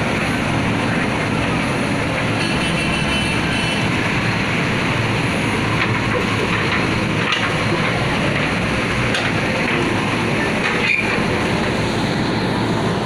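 Diesel engine of a JCB backhoe loader running steadily, with a few sharp clanks.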